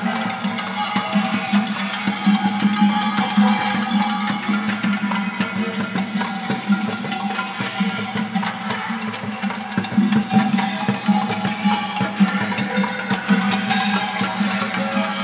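Ensemble percussion played on pots, pans, kettles and other cookware worn as wearable drum rigs: dense, rapid strokes making a continuous rhythmic groove.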